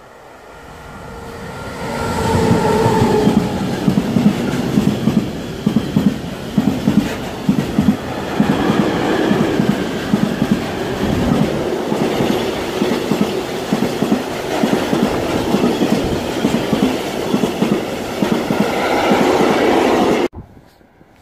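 Freight train of tank wagons behind an electric locomotive passing close by: the sound swells as the locomotive comes up, then a steady rumble with a rapid clickety-clack of wagon wheels over rail joints as the tank wagons roll past. It cuts off suddenly near the end.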